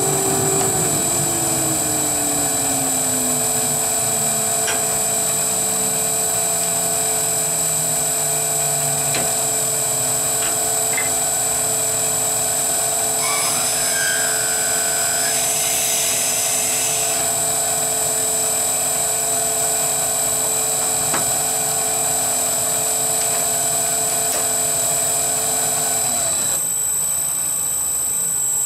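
Wood lathe running with a steady whine while a twist drill in a tailstock drill chuck bores into the spinning wooden top body, a hiss of cutting for a few seconds around the middle. Near the end the lathe's hum drops away as it runs down.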